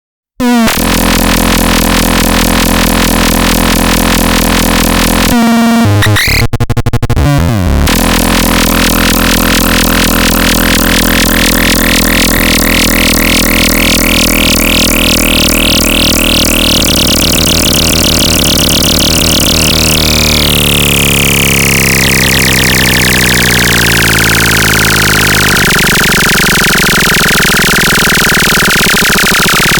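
Synthesizer sounding a harsh, buzzy drone thick with overtones. It drops out briefly twice between about five and eight seconds in. Then its tone slowly brightens, and from about twenty seconds in it sweeps darker again.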